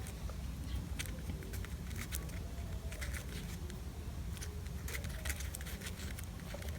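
Light scattered taps, clicks and rustles of hands handling and pressing a glued ribbon craft piece, over a steady low hum.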